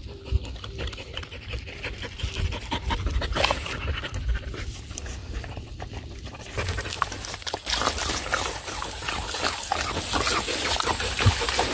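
Dogs (a Pungsan dog and a Pungsan–Jindo mix) tearing and chewing grass up close: many small crunches and rips of stalks. From about seven seconds in, grass blades rustle against the microphone with a louder, steady hiss.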